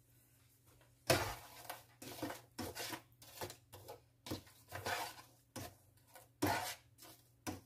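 A spatula stirring and scraping onions and peppers around a nonstick frying pan, in short strokes about twice a second, starting about a second in, over a faint low hum.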